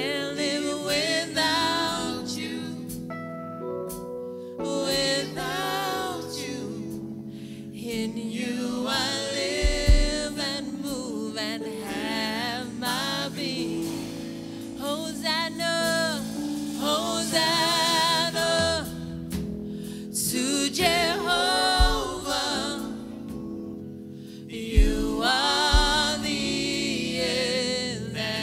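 Gospel worship song: singing with a wavering vibrato over sustained keyboard-like chords, with a few low thumps along the way.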